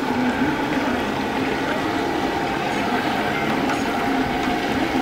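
Chicken pieces deep-frying in a large steel kadai of hot oil, sizzling steadily.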